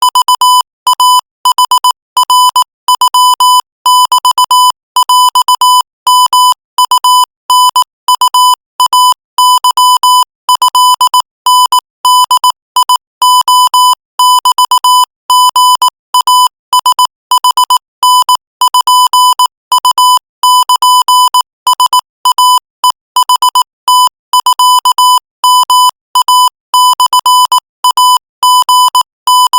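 Morse code sent at 22 words per minute: a single steady electronic beep tone switched on and off in rapid dots and dashes, without pause.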